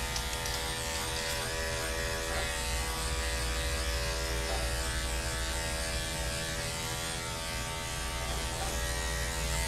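Corded Andis five-speed dog clipper running with a steady hum while its blade clips a dog's coat.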